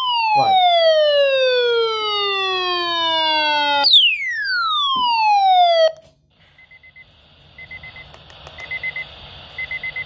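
A siren-like electronic tone falling steadily from high to low pitch, sounding twice, each fall lasting about five seconds. It cuts off abruptly about six seconds in, leaving faint hiss and short high beeps about once a second.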